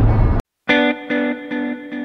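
A steady rumble of noise cuts off abruptly less than half a second in, and after a brief silence background music starts: plucked guitar notes with an effects-heavy sound.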